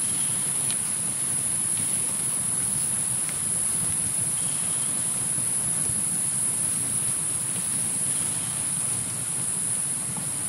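Steady chorus of insects, a continuous high-pitched trill that never breaks, over an even rush of rain.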